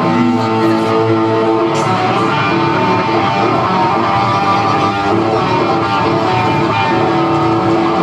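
Band music carried by guitar, with strummed chords and a bass line, playing at a steady loudness.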